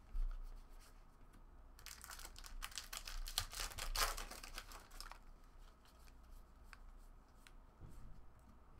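Foil trading-card pack wrapper crinkling and tearing for about three seconds, starting about two seconds in. Scattered soft clicks of cards being handled come before and after it.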